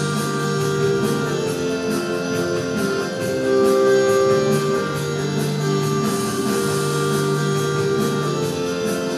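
Pop music playing loudly, with plucked guitar-like strings over held notes and a steady beat, and no singing.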